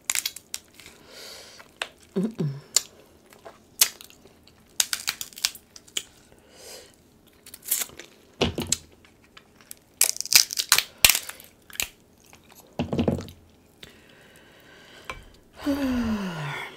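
Cooked king crab leg shells being snapped and pulled apart by hand: a string of sharp, irregular cracks and shell crunches, with some chewing between them.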